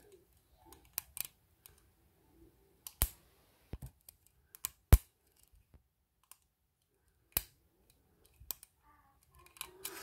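Scattered sharp metal clicks and taps of a lock pick and tension wrench working the pins in the core of a cheap stainless-steel disc padlock, the loudest about five seconds in.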